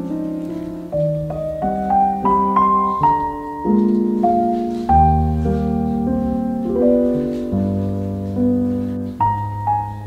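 Background music: a slow, gentle piano melody over held chords.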